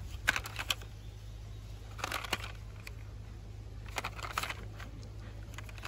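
Faint handling noise of a plastic toy car being turned over in the hand: a few light clicks and rustles, over a steady low hum.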